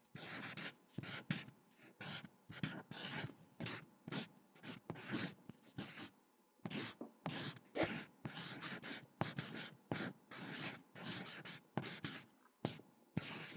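Quick, scratchy drawing strokes, one short stroke after another at about two a second, as a sketch is drawn.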